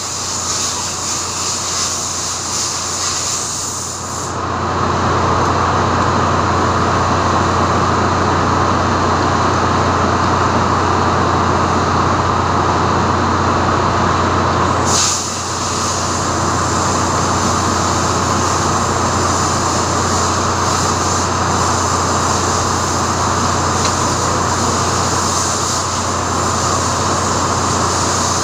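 Steady, loud machinery drone with a constant low hum under it, growing louder about four seconds in and dipping briefly around the middle.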